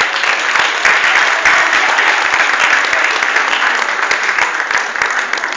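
Audience applauding: dense, steady clapping that eases a little near the end.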